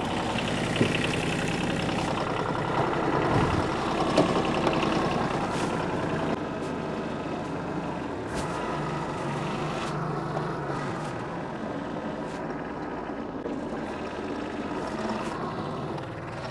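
New Holland tractor engine running as the tractor is backed up to line up a backhoe's mount. The engine is a little louder for about the first six seconds, then settles lower, with a few light clicks.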